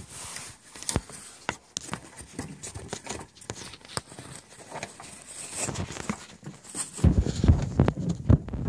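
Handling noise from a phone being moved around: scattered clicks and taps, then a loud low rumble on the microphone starting about seven seconds in.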